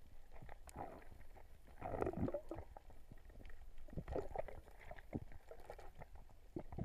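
Muffled underwater gurgling of bubbles in two or three bursts about two seconds apart, typical of a scuba diver's exhaled breath, over a low rumble, with scattered small clicks and knocks.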